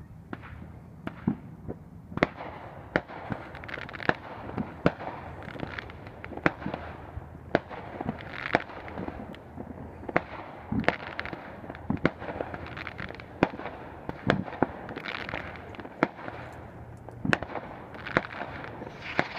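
Aerial fireworks shells bursting in an irregular string of sharp bangs, often one or two a second, over a steady background noise.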